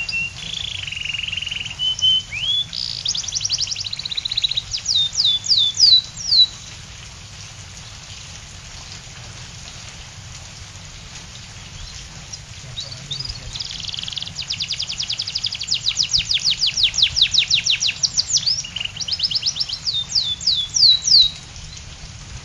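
Domestic canary singing in two long bouts of varied song, with a pause of several seconds between. The second bout is a long run of rapid falling trill notes, about eight a second, before ending near the close.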